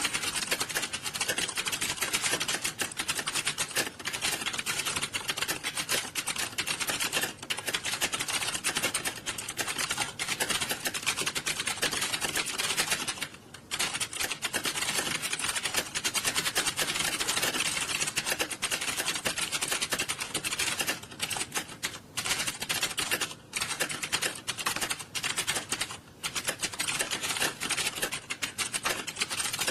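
Many computer keyboards being typed on fast at once, a dense continuous clatter of overlapping key clicks, with brief lulls now and then.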